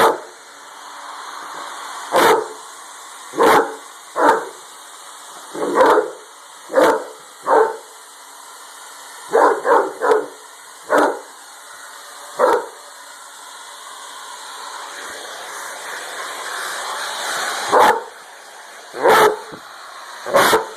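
A dog barking at a running hair dryer: about a dozen short barks in the first twelve seconds or so, a pause of about five seconds, then three more near the end, over the hair dryer's steady blowing noise.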